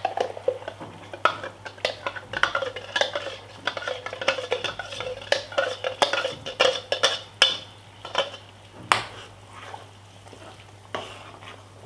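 A steel spoon stirring thick masala paste into bubbling oil-and-curd gravy in a pan, with irregular scrapes and clinks against the pan and a light sizzle underneath. The scraping is busiest in the first several seconds, followed by a few sharper knocks near the end.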